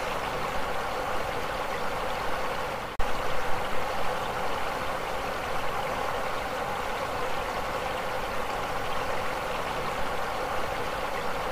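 Muddy floodwater from an overflowing river rushing past buildings in a steady roar of moving water. There is a brief break about three seconds in, after which the rushing carries on slightly louder.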